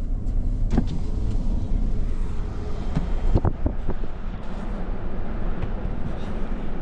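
Wind buffeting the microphone, a steady low rumble, with a few short knocks about a second in and again around three seconds in.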